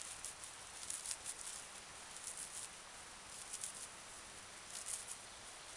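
Dry birch bark being rubbed and pulled apart between gloved hands, shredding it into finer fibres for a tinder bundle: a light, crackly rustling in irregular short scratches.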